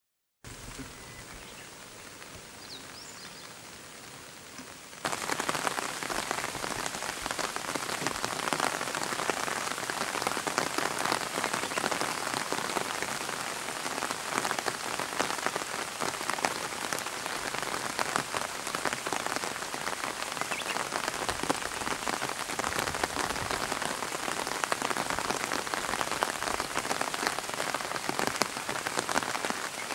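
Steady rain falling, a dense hiss of drops that comes in abruptly about five seconds in after a much quieter stretch.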